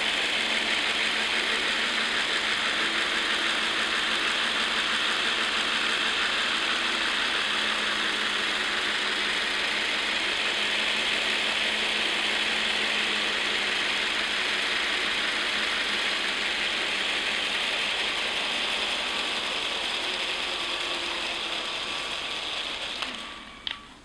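Lego Technic V-22 Osprey model's motor and plastic gears whirring steadily as they drive the rotors. The sound drops away sharply near the end, with a couple of short knocks.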